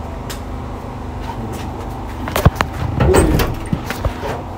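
A few sharp knocks on a door, about halfway through.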